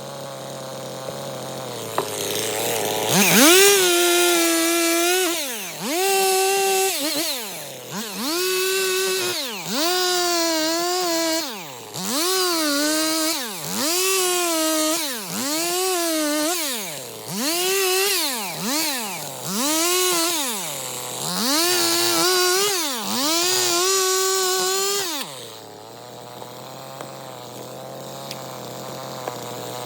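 Stihl MS 250 two-stroke chainsaw idling, then repeatedly run up to full throttle and let off, about a dozen times roughly every two seconds, as it bucks firewood. Near the end it settles back to idle.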